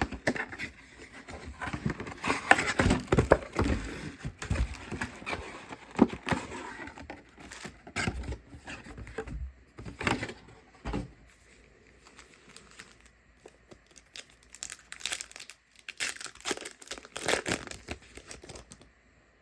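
Plastic wrapping of trading card packs crinkling and tearing as the packs are opened by hand, in irregular spells with quieter gaps.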